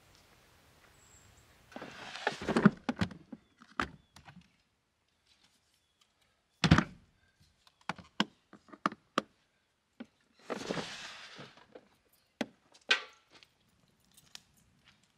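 Gear being handled in the bed of a pickup camper, around a cooler: bursts of rustling, scattered knocks and clicks, and one heavy thunk about seven seconds in.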